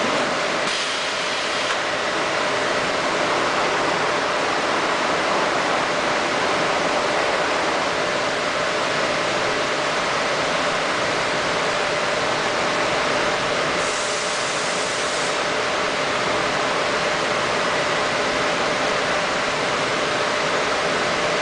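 Steady, loud machinery noise, an even hiss with a faint steady hum tone, with a short burst of higher hiss about 14 seconds in.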